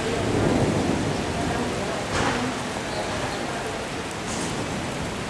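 Heavy rain falling steadily on a stone-paved courtyard, with a low rumble of thunder swelling over the first second or so and a brief sharper rush of noise about two seconds in.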